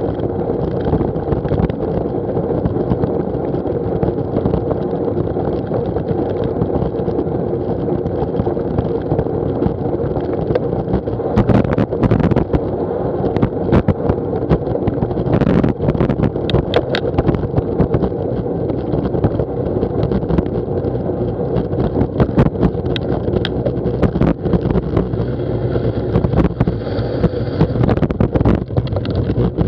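Steady rush of wind over an action camera's microphone and bicycle tyres rolling on a wet tarmac path at about 16 mph. Sharp rattling clicks from the bike going over bumps come in clusters about halfway through and again near the end.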